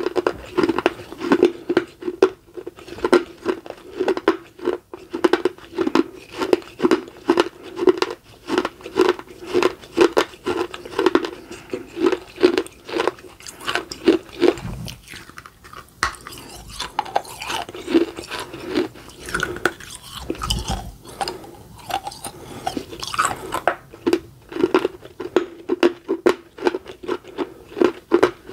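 Someone chewing and crunching pieces of baked red clay close to the microphone: a steady run of gritty crunches, about two or three a second.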